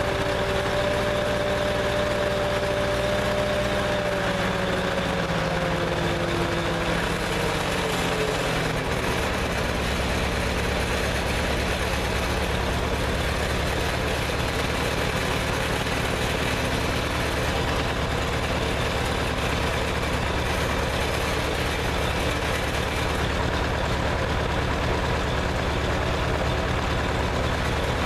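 1948 Farmall H tractor's four-cylinder gasoline engine running; its speed falls over a few seconds, about a quarter of the way in, then it settles into a steady idle.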